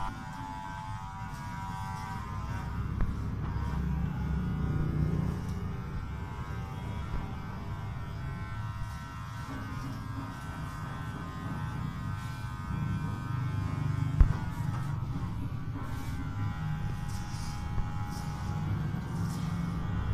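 Electric hair clippers buzzing steadily while trimming a child's hair, over a low background rumble, with one sharp click about fourteen seconds in.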